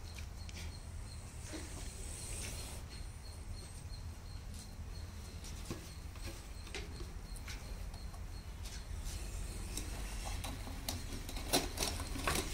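Quiet outdoor background with a steady low rumble and scattered faint clicks and rustles. Near the end come a few sharper knocks and scrapes as a plastic jar is handled on the ground.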